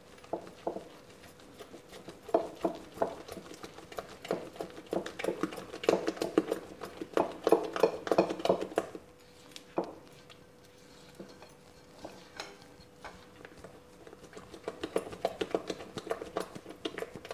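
Silicone spatula stirring thick cake batter in a glass mixing bowl as buttermilk is worked into the flour and butter: quick, repeated strokes and taps against the glass. They come in spells, strongest in the first half, dying down in the middle and picking up again near the end, over a faint steady hum.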